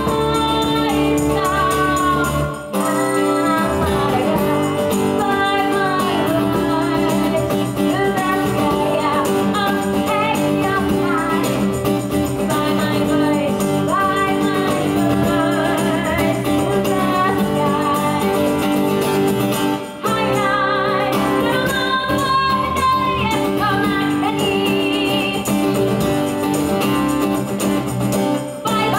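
Live pop-rock band playing: a woman singing the lead with tambourine over drum kit and electric bass, with two brief breaks in the band, about three seconds in and again around twenty seconds.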